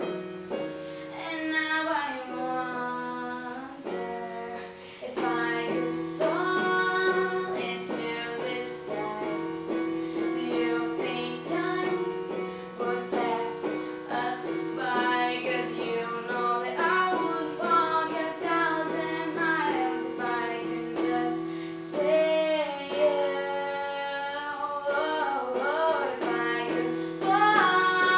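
A woman singing while accompanying herself on an electronic keyboard, playing piano parts with both hands under a sustained sung melody.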